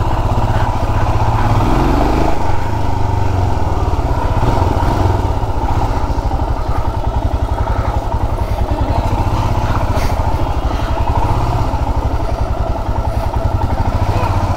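Royal Enfield Himalayan's 411 cc single-cylinder engine running steadily as the motorcycle is ridden, a continuous low pulsing of exhaust beats.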